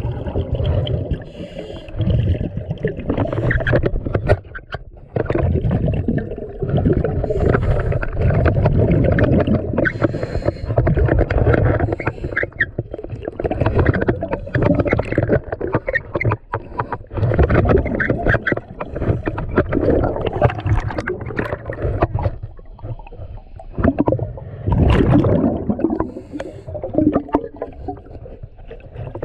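Underwater sound of a scuba diver breathing through a regulator, with loud, gurgling bursts of exhaled bubbles rising and falling every few seconds.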